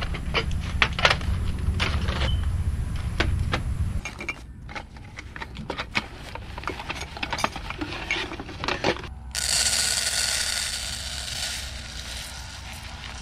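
Clicks and knocks of camp cookware and a pouch being handled. About nine seconds in, uncooked rice is poured from a plastic bag into a camping cook pot: a steady hiss of falling grains that slowly fades.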